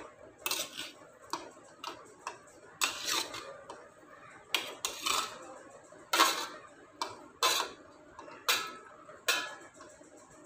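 Steel spoon clinking against a steel plate and the rim of a pan, a dozen or so sharp, irregular clinks, as soft chhena balls are slid off the plate into thickened milk for ras malai.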